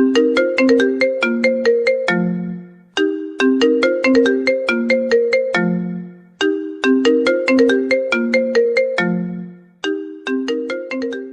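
A phone ringtone's melody of short, bright struck notes, repeating as the same phrase about every three and a half seconds, each phrase ending on a lower held note. It fades near the end.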